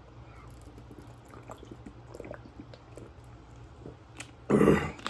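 A person drinking from a plastic bottle: faint swallowing and liquid sounds, then a short, louder sound about four and a half seconds in as the bottle comes away from the mouth.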